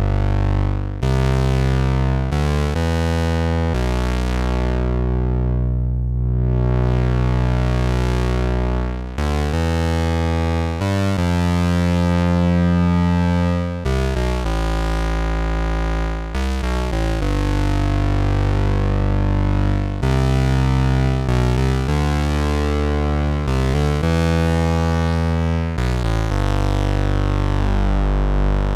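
IK Multimedia Uno Synth, a monophonic analog synthesizer, playing a line of held, bass-heavy notes that change every one to three seconds. Around the sixth second the sound goes dull and then bright again, as the filter closes and reopens.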